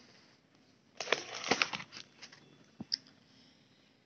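Paper rustling and crinkling as a textbook page is handled and turned, in a cluster of short strokes about a second in, followed by a single light click.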